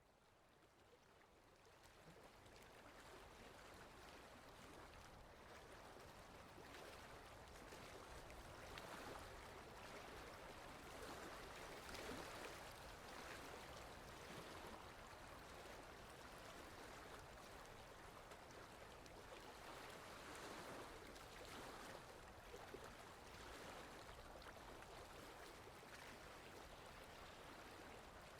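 Gentle waves lapping against a shore: a faint, steady wash of water that fades in over the first few seconds, then swells and eases now and then.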